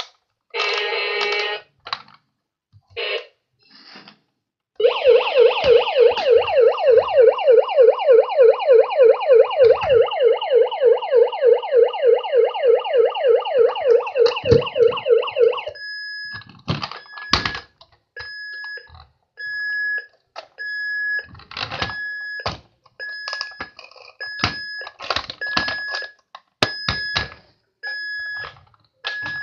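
Battery-powered electronic siren of a Hess toy emergency truck: a few short electronic bursts, then a fast warbling siren for about ten seconds, then a high repeating beep about once a second, with clicks and knocks from the toy being handled.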